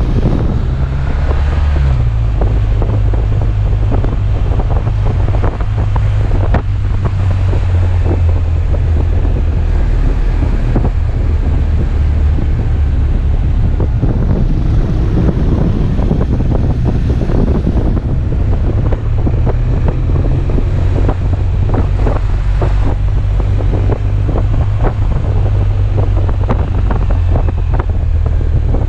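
Wind buffeting the microphone on a moving motorcycle, over the steady running of a BMW R1200RT's boxer-twin engine; the engine note drops about two seconds in.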